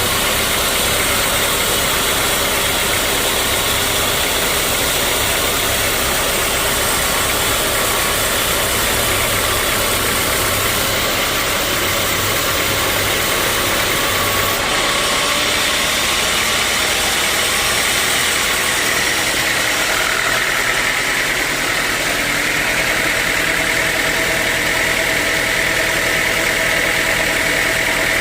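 Sawmill machinery running steadily with a loud, even mechanical din. A higher, held tone grows stronger about two-thirds of the way through.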